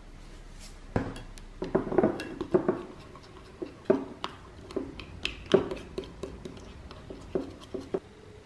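Clear plastic spoon stirring a sauce in a small glass container, clicking and scraping against the glass in irregular taps that start about a second in.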